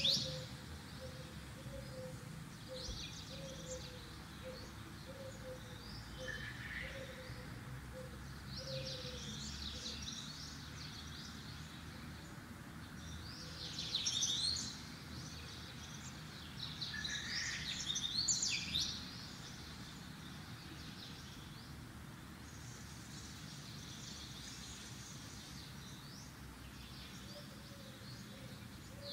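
Birds chirping in scattered short phrases over a steady faint background hiss, with two louder spells about halfway through.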